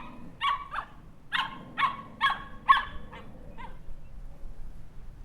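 Puppy yapping: a run of about eight short, high-pitched barks, each breaking off quickly, that stop about three and a half seconds in.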